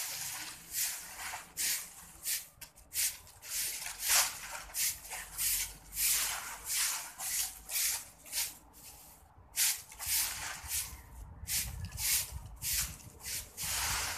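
Broom sweeping dry leaves across a concrete floor: brisk scratchy strokes, about two a second, with a couple of short breaks.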